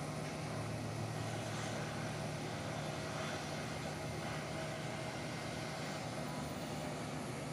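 Steady, even hum of an Airbus A320 airliner and its pushback tug heard from across the apron, with a constant low drone.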